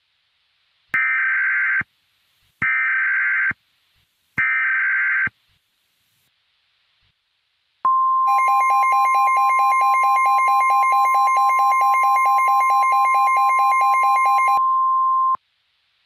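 Three short screeching bursts of EAS/SAME digital header data, the coded start of an emergency alert, here opening a tornado warning. About two seconds later comes the NOAA Weather Radio 1050 Hz warning alarm tone: a steady beep held about seven and a half seconds, with a pulsing, buzzy alarm tone layered over most of it.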